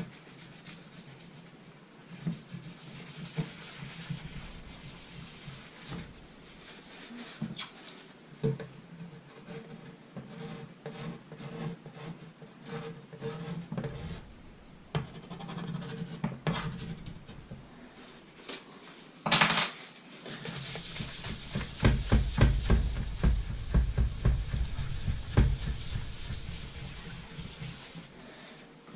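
Rubbing and scraping at sticky old adhesive-pad residue in a laptop's plastic screen housing, softened with adhesive remover; irregular strokes. A sharp knock comes about two-thirds of the way through, followed by faster, harder scrubbing near the end.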